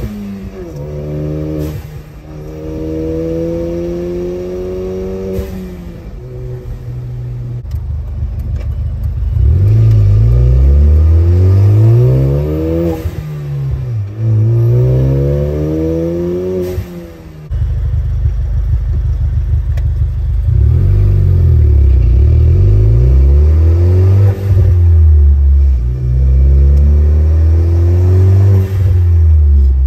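Ford EcoBoost turbocharged engine heard from inside the car, accelerating through the gears: the engine note climbs and drops back at each shift, again and again. It runs lighter for the first few seconds, then gets much louder with hard acceleration about a third of the way in. A short whoosh of the turbo's blow-off valve comes at several of the shifts.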